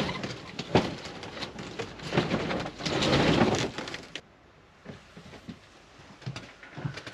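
A motorhome's slatted windscreen roller blind being pulled down by its handles, the slats rattling and clattering for about four seconds before it stops.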